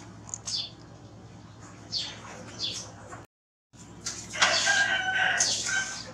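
A rooster crows about four seconds in, a held call that is the loudest sound here, over scattered short, high chirps. The sound cuts out completely for a moment just after three seconds.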